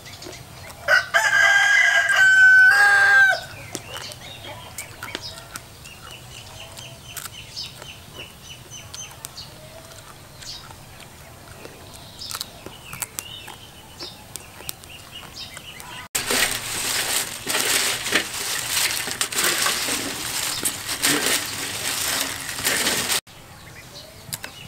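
A rooster crows once about a second in, a loud call of steady pitch lasting about two seconds. Faint chicken calls follow. Later a loud crackling, rustling noise runs for about seven seconds and cuts off sharply.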